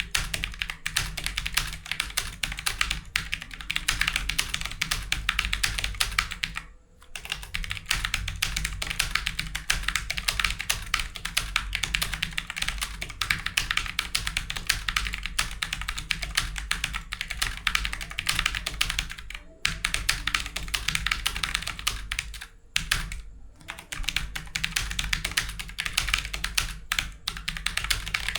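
Computer keyboard typed on rapidly and continuously during a timed typing test at about 85 words per minute: a dense stream of key clicks, broken by brief pauses about 7 seconds in, about 20 seconds in and about 23 seconds in.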